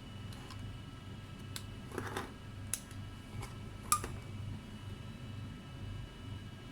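A few sharp plastic clicks and handling noises, the loudest about four seconds in, as freshly crimped RJ45 plugs are snapped into a LAN cable tester, over a low steady hum.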